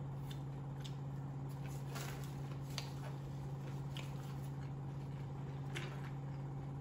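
Quiet eating and handling sounds: a few soft clicks and rustles from chewing and a paper napkin and wrapper being handled, over a steady low hum.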